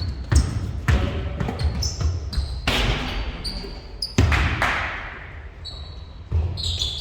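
Basketball bouncing repeatedly on an indoor court during a game, with short high sneaker squeaks between the bounces.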